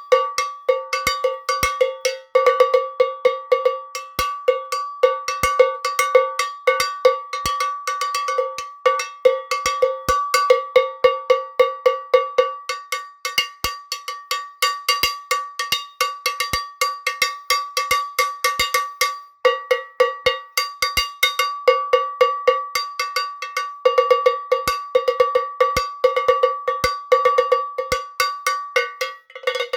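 Cowbell struck by hand in a fast, continuous rhythm, each hit ringing at the same two clanging pitches. The playing stops for a moment a few times before picking up again.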